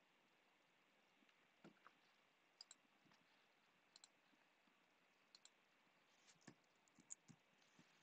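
Faint clicks of a computer mouse over near silence, several coming in quick pairs like double-clicks, with a closer run of clicks a little past the middle.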